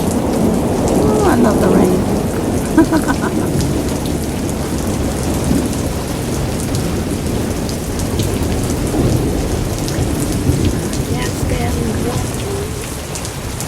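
Heavy rain pouring steadily, a dense hiss of rain hitting surfaces with a deep rushing undertone.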